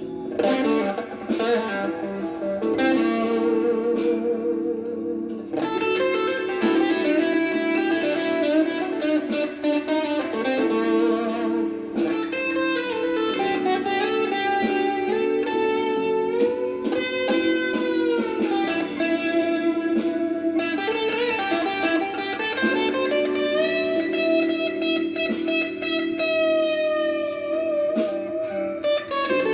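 Gibson Les Paul Traditional electric guitar playing a blues lead, with long sustained notes bent up and back down in pitch.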